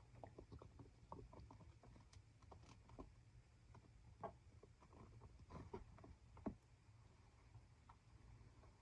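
Near silence with a low steady hum and faint, scattered light clicks and scratches, the sharpest a single tap about six and a half seconds in.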